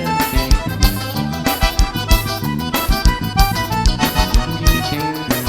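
Instrumental forró vaquejada music: an accordion playing a melodic run over bass and a steady drum beat.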